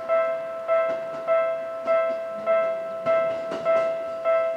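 Japanese railway level-crossing alarm: a single electronic bell-like tone struck about every 0.6 s, warning of the approaching train. A few faint clicks sound under it.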